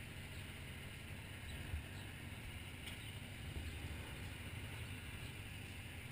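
Motorcycle engines idling, a steady low rumble, with a couple of light clicks about two and three seconds in.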